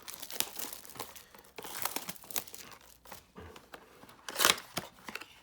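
A cardboard trading-card blaster box being torn open by hand, with irregular crinkling and tearing of its packaging and the loudest tear about four and a half seconds in.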